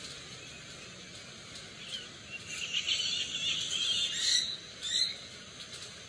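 Red-fan (hawk-headed) parrot giving a rough, high call lasting about two seconds, starting about two seconds in, then a short second call a moment later, over a steady faint hiss.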